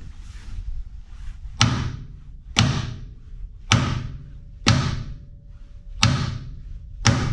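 Six hard hammer blows, about one a second, on a steel mount spot-welded to a Honda CRX's chassis, each a sharp bang with a short ring after it, knocking the mount loose.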